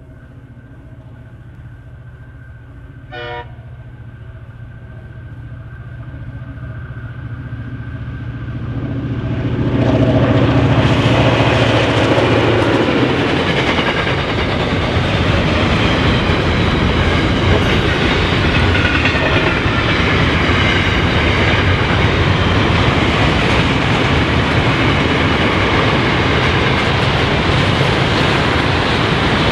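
A freight train approaching and passing. Its locomotive's engine drone grows steadily louder over the first ten seconds, with a brief horn toot about three seconds in. The long string of covered wagons then rolls past with loud, steady wheel-on-rail noise.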